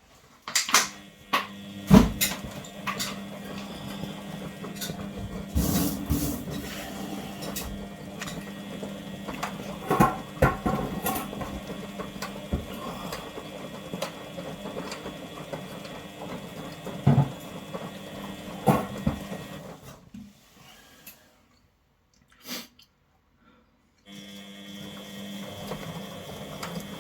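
Front-loading washing machine running with its covers off: the drum motor hums and whines steadily, with the belt and pulley turning the drum, and several knocks as the drum turns. The sound cuts to near silence for about four seconds near the end, with one short knock, then the hum comes back.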